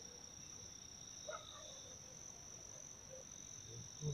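Crickets chirring in a steady, high, unbroken tone, with a couple of soft footstep thumps on the dirt track near the end.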